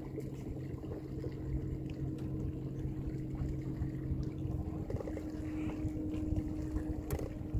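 Boat motor running steadily under a low rumble; its note changes about five seconds in.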